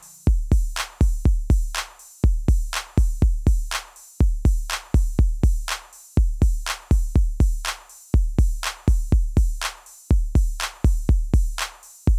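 Background music: a drum-machine beat of deep bass kicks and sharp percussive hits repeating in an even rhythm, with no melody.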